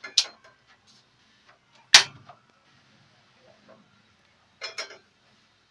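Sharp clicks of a gas stove's auto-ignition lighting a burner, the second click the loudest. Near the end a metal kadhai clanks with a short ring as it is set down on the burner's pan support.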